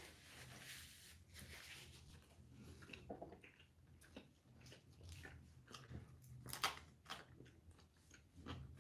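Faint chewing and biting of a burger and fries, with small scattered clicks and mouth sounds and one sharper click about two-thirds of the way through. A soft rustle of a paper napkin opens it.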